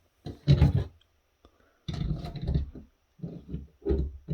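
Handling noise: irregular knocks and rustles, in a few short clusters.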